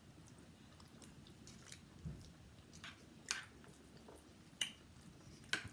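A person eating: quiet chewing with a handful of short, sharp mouth clicks and smacks.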